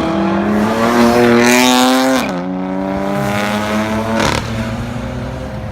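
Tuned BMW M car engine accelerating hard, its pitch climbing, then dropping sharply at an upshift about two seconds in and climbing again through the next gear.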